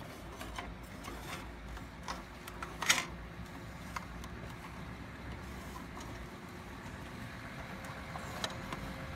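Hard plastic clicks and knocks from a Bruder toy garbage truck's rear loader being worked by hand, one sharper click about three seconds in, over a steady low hum.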